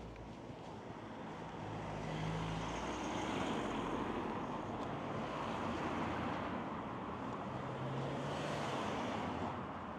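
Road traffic going by: tyre and engine noise of passing vehicles swelling up and fading away.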